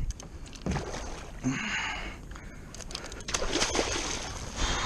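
Water splashing as a hooked dogtooth tuna thrashes at the surface beside a kayak, in two spells about a second and a half in and again near the end, with scattered small knocks and clicks.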